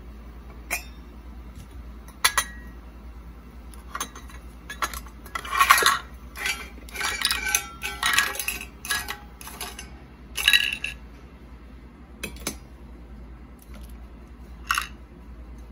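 Miniature toy cookware and hard plastic toy vegetables being handled: a string of clinks and clatters, thickest in the middle, with a last ringing clink near the end.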